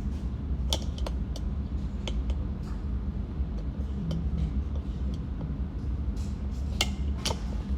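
Light clicks of cartridges being pressed one at a time into a pistol magazine. There are several in the first few seconds and two more near the end, over a steady low hum.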